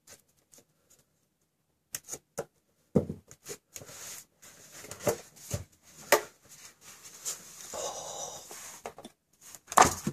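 Cardboard retail box being opened by hand: a few light ticks as a small pointed tool picks at the sealing tape, then the flaps rustling and scraping with scattered knocks, and one loud knock near the end as the box is lifted off its inner tray.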